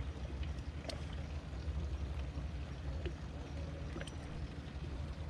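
Ambience aboard a bass boat on a lake: a low, uneven rumble with faint water lapping at the hull and a few light clicks.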